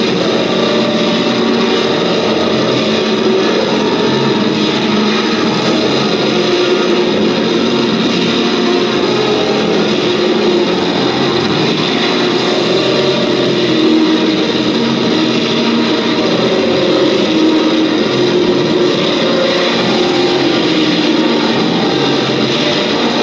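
Loud live experimental noise music: a dense, distorted drone that never lets up, with tones slowly wandering in pitch through it.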